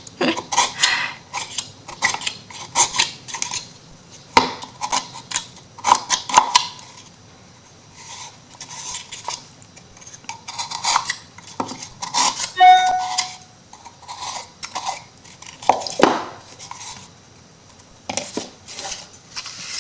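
Kitchen knife scraping and clicking against a paper-covered MDF wood piece as its edges are trimmed, in short irregular strokes. About two-thirds of the way through, the metal blade gives one short ring.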